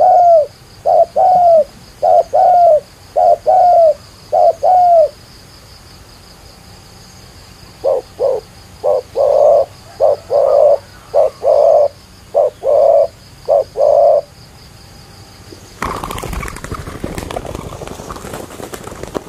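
Spotted doves cooing: a run of repeated low, paired coos, then after a pause of about three seconds a second series of coos. About three seconds before the end, a burst of rustling, clattering noise takes over.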